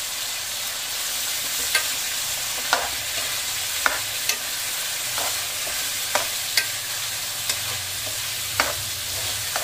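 Chicken and chopped tomatoes sizzling in hot oil in a metal karahi, stirred with a metal spoon that clinks against the pan about once a second.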